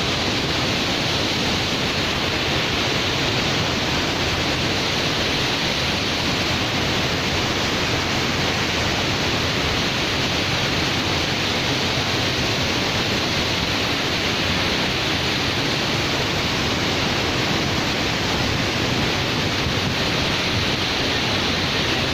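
Waterfall pouring, a steady, unbroken rush of falling water.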